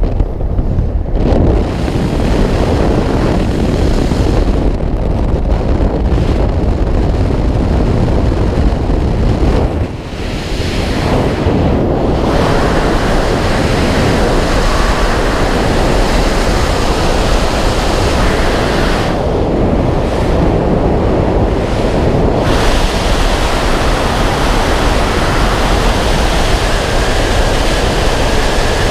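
Loud, steady rush of freefall wind buffeting the camera's microphone, with a brief dip about ten seconds in.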